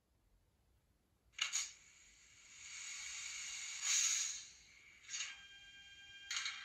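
Simulated start-up sounds from the DCC sound decoder of a Fleischmann N-scale class 1600 electric locomotive model, played through its small onboard speaker. A sharp click-hiss comes about a second and a half in, then a hiss that builds to a loud peak near four seconds, then more short hisses; from about five seconds a steady electrical whine sets in.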